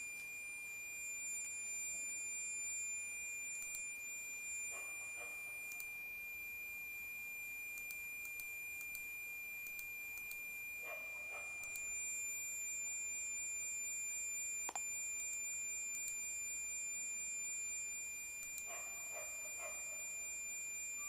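Asus Transformer Book T100 laptop's audio output giving a steady high-pitched tone that holds unchanged, with fainter higher tones above it. It is the T100's known sound fault, a frequent shrill beep that firmware updates did not cure and that only suspending and resuming the machine clears for a while.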